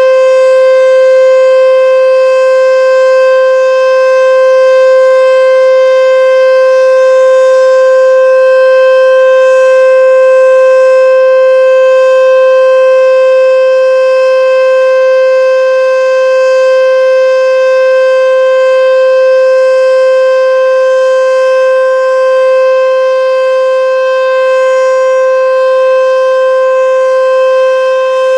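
H.O.R. Super Sirex outdoor warning siren sounding a steady single-tone full alert, held at one constant pitch.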